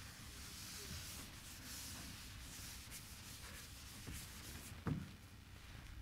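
Chalkboard eraser wiping a chalkboard clean, a soft rubbing hiss that is strongest over the first three seconds and trails off. A single soft knock about five seconds in.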